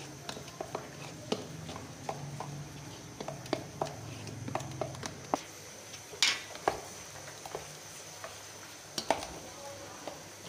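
Metal spoon stirring a dry spice mix in a stainless steel bowl: irregular light clinks and scrapes against the bowl, with a sharper knock about six seconds in.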